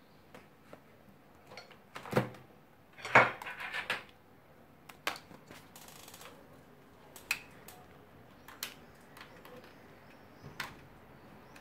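Scattered clicks and knocks of handling at a computer desk: the phone being moved about and hands on the laptop and a mouse. The loudest part is a short clatter of knocks about two to four seconds in.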